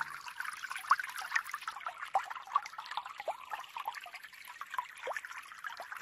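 Babbling stream water, trickling with many small, quick bubbling gurgles.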